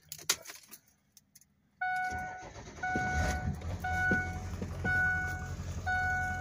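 Clicks and rattles, then about two seconds in a Ford F-250 Super Duty's engine comes on and runs with a steady low rumble, heard inside the cab. The dashboard warning chime rings about once a second over it.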